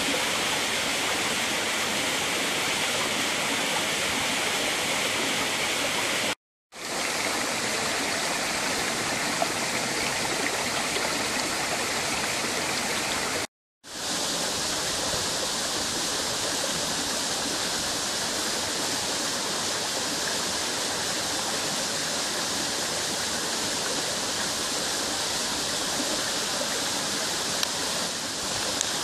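Steady rush of a shallow stream's flowing water, cutting out to silence twice, briefly, in the first half.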